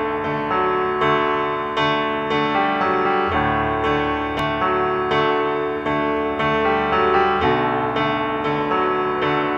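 Background piano music, with notes struck about twice a second.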